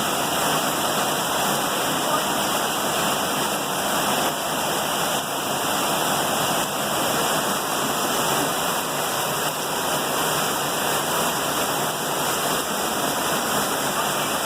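Heavy rain with rushing runoff water, a steady, even noise.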